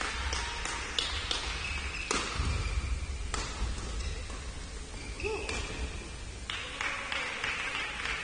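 Badminton rally: rackets striking a shuttlecock, several sharp cracks roughly a second apart.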